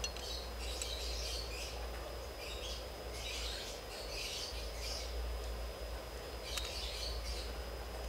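Birds chirping faintly in short repeated bursts over a low steady hum, with a few light clicks.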